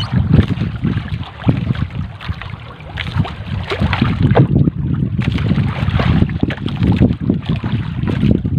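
Wind buffeting the microphone, easing briefly about two seconds in, over water splashing along an outrigger boat's hull. A wet fishing net rustles and scrapes as it is hauled aboard by hand.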